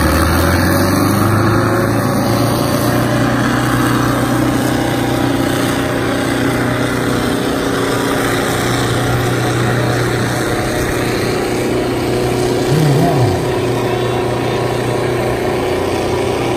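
Two tractor engines, a Ford 3600 and a Sonalika 60, running hard and steady under full load as the tractors pull against each other in a tug-of-war, one exhaust blowing black smoke.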